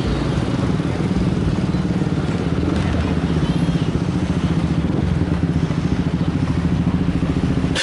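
Road traffic crossing railway tracks: the engines of motorcycles, minibuses and cars running as they pass close by, a steady low drone with a fast pulsing beat. A single sharp click comes right at the end.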